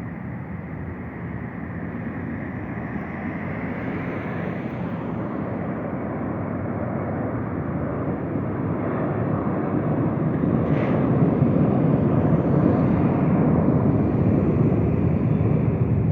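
Boeing 737-800 jet engines at takeoff power: a rushing jet noise that grows steadily louder for about ten seconds as the airliner comes closer, then holds.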